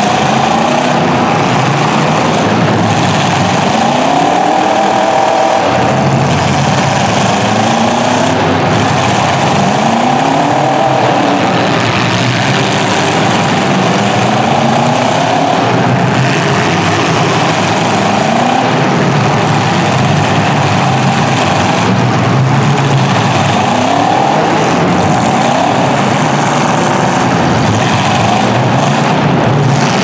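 Several demolition derby cars' engines revving loudly, repeatedly rising and falling in pitch as the cars accelerate and ram one another.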